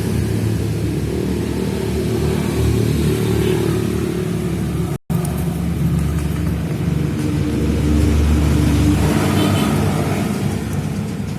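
Yamaha RX-King two-stroke single-cylinder motorcycle engine running, getting louder about eight seconds in as it is revved, with a brief cut in the sound about five seconds in.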